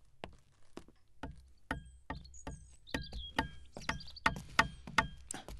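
Irregular sharp knocks and taps, a couple to a few a second, from hand work on a wooden handcart, with short bird chirps in between.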